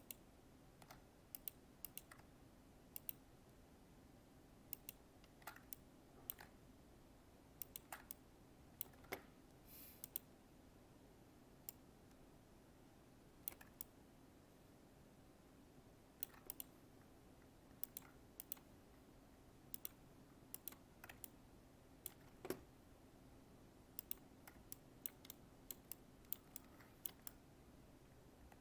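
Scattered, irregular clicks of a computer mouse and keyboard, often in quick pairs, over a faint steady low hum.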